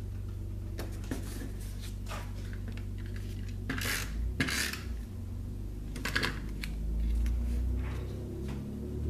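Paper pieces being handled and pressed down on a table: scattered light clicks and taps, with two louder paper rustles in the middle.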